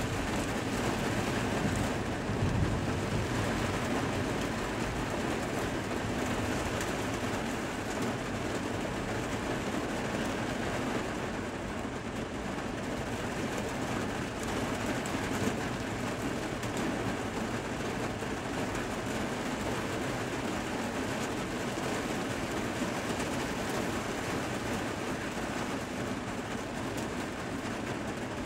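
Rain falling steadily, with a low rumble of thunder dying away in the first few seconds.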